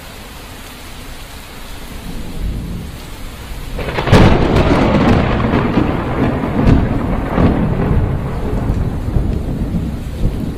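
Thunderstorm: steady rain, then a sudden loud thunderclap about four seconds in that rolls on as long, rumbling thunder over the rain, with further sharp cracks.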